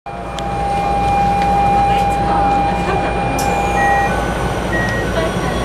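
Keikyu New 1000 series 1800-subseries electric train running, heard from inside the passenger car: a low rumble under the whine of its Toyo IGBT-VVVF inverter. The inverter holds one steady tone, then about four seconds in it changes to a few short, higher tones that step in pitch.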